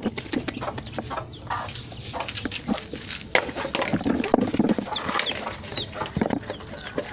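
Chickens clucking close by, over many short clicks and knocks from a dog and puppies eating rice out of a pan.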